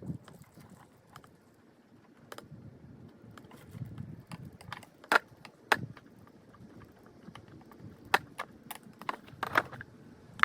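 Irregular clicks and clinks of small hard objects being handled, with a few sharper knocks about five seconds in and again near the end.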